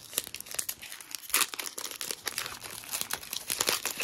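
Foil wrapper of a trading-card pack crinkling and tearing as it is opened and handled, a quick irregular run of crackles and rustles.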